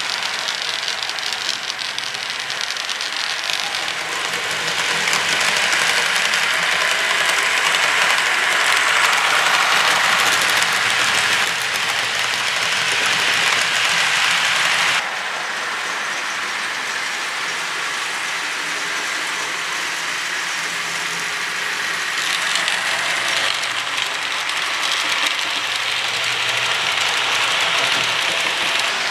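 HO scale model ore train running past: the cars' metal wheels click and clatter rapidly over the track. The sound grows louder as the train nears, drops suddenly about halfway through, then builds again near the end.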